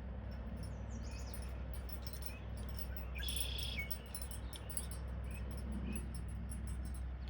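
Outdoor wildlife ambience: faint scattered chirps, with a half-second buzzing call about three seconds in, over a steady low rumble.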